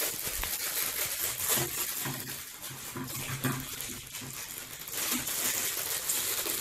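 Crinkling and tearing plastic of instant ramen noodle packets being opened by hand, with scattered crackles as the dry noodle blocks are handled.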